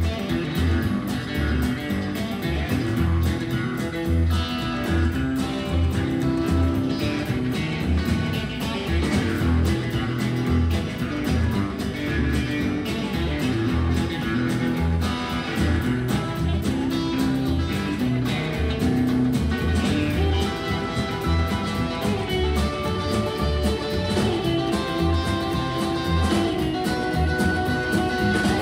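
Live rockabilly band playing: electric and acoustic guitars over an upright bass with a steady, even pulse.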